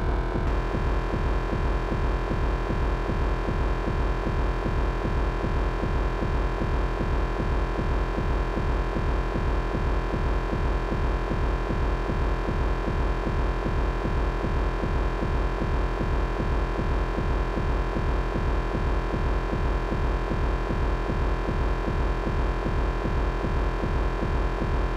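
Experimental electronic music played live from a computer and controller: a dense, steady drone of stacked tones over a fast, throbbing low pulse. The upper tones shift about half a second in.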